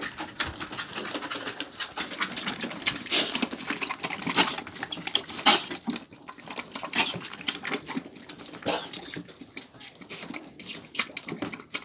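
Lambs moving about a straw-littered pen: a busy patter of hooves and rustling with sharp clicks and knocks, loudest in the first half. Later, quieter clicking as lambs suck milk from the rubber teats of a bucket feeder.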